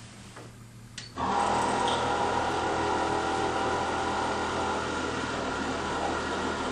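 Distek VIP 4400 dissolution vessel washer draining a vessel: a click about a second in, then its drain suction starts abruptly and runs as a steady mechanical noise with a few steady tones, drawing the liquid out of the vessel.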